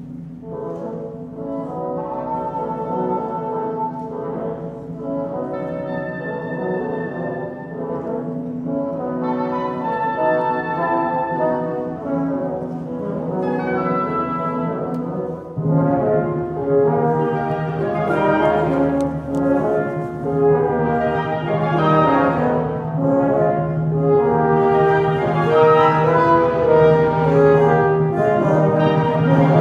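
Live symphony orchestra playing held chords that build gradually louder, with a low sustained note coming in about halfway through and the texture thickening toward the end.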